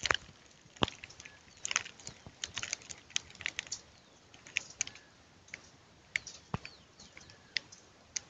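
Sparse, irregular soft clicks and crackles of dry grass and leaf litter being brushed or stepped on, a few light snaps a second at most.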